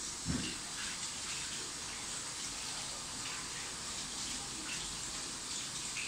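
Steady rushing, hiss-like noise, with a single low thump about a third of a second in.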